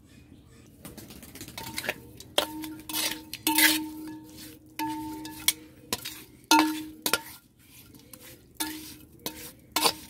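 Metal spatula scraping and knocking against an unglazed clay bowl as it tosses catfish pieces in turmeric and salt, starting about a second in. Several of the knocks set the bowl ringing briefly with a low tone.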